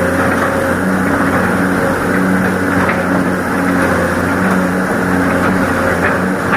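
Excavator's diesel engine running steadily under work, a constant low engine drone.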